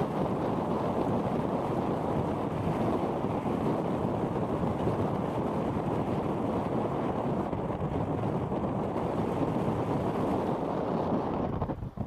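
Strong wind from an approaching typhoon buffeting the microphone in a loud, steady rumble, with heavy surf breaking on the rocky shore beneath it.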